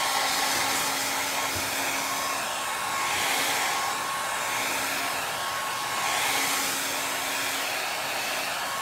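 Handheld hair dryer running steadily, blowing air over a freshly wiped, damp chalkboard to dry it, with a thin steady whine. Its level rises and falls slightly every few seconds as it is swept across the board.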